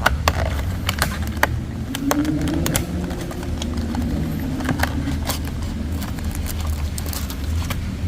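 Hands handling a trading-card trial deck box and its cards, making a run of sharp clicks and light rustles over a steady low hum.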